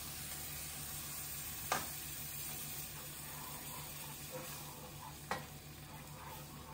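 Coconut milk curry sizzling softly in a frying pan while it is stirred with a spatula, with two light knocks of the spatula against the pan.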